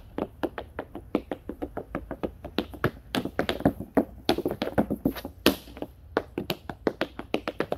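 Tap shoes striking a wooden board: a rapid, uneven stream of sharp metal-tipped taps, several a second, with a louder accented stroke about five and a half seconds in.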